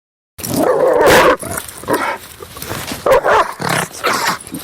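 Rottweiler barking aggressively: one long, loud bark of about a second near the start, then a run of shorter, irregular barks.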